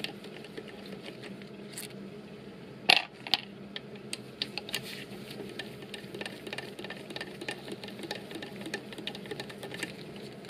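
Torx driver clicking and ticking in quick, uneven runs as it backs aluminum bolts out of a Mercedes 9G-Tronic transmission's valve body, with a sharper metallic clink about three seconds in.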